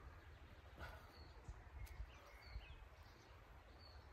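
Near silence, with a few faint, short bird chirps in the background and a couple of soft clicks over a low rumble.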